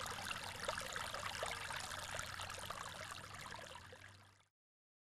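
Water in a stream running and trickling, fading out and stopping about four and a half seconds in.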